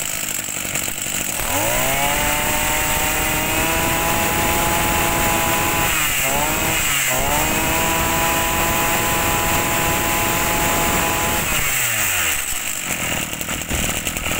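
Maru Q12 brush cutter's two-stroke engine revved up about a second and a half in and held at high speed. The throttle eases off twice briefly in the middle, and the engine drops back toward idle near the end.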